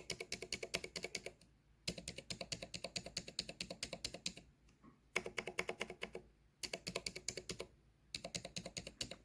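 Typing on a Vortex Core 40% keyboard with 80 g Aliaz silent tactile switches and stock PBT keycaps. The keys are tapped in quick runs of about ten keystrokes a second, with short pauses between runs.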